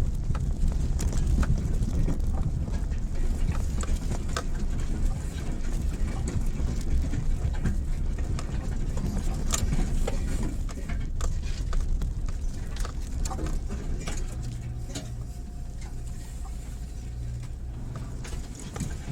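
Mitsubishi Pajero Mini being driven slowly over a rough gravel track, its engine running low under many small knocks and crackles of stones under the tyres. From about three-quarters of the way in, the engine note steadies into an even hum.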